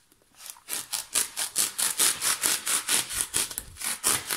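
A knife sawing back and forth through a foam pool noodle, a quick rhythmic rasping of about five strokes a second that starts about half a second in.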